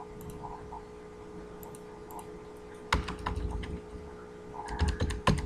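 Typing on a computer keyboard: a quick run of keystrokes about three seconds in and another near the end, over a faint steady hum.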